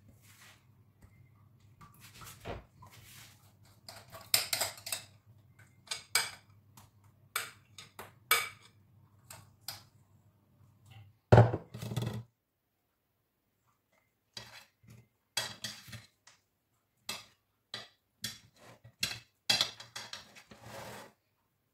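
A utensil scrapes and clinks against the cake plate and bowl in short, irregular strokes as cream is spread over a cake layer. About eleven seconds in there is one louder knock.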